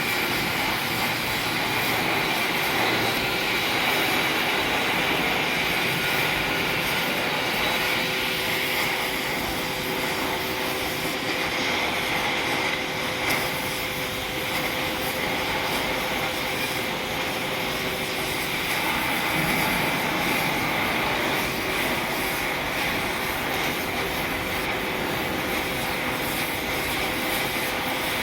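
Gas-welding torch flame hissing steadily without a break.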